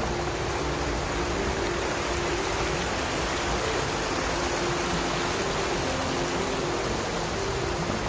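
Shallow stream water rushing and splashing over rocks in a riffle, a steady, even rush. Soft background music notes run underneath.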